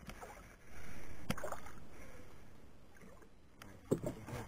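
Water splashing and sloshing at the boat's side as a hooked snook thrashes at the surface on the line, with a few sharp knocks, the last two near the end.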